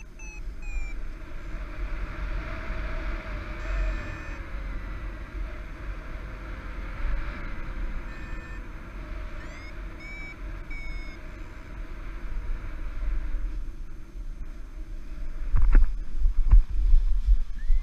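Wind rushing over a paraglider pilot's camera microphone, with runs of short rising electronic beeps from a flight variometer signalling lift. Near the end, a few thumps and louder wind buffeting as the pilot touches down.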